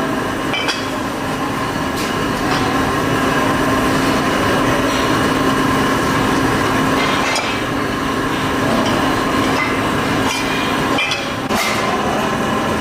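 Workshop machinery running with a steady hum, broken now and then by sharp metallic clicks and knocks.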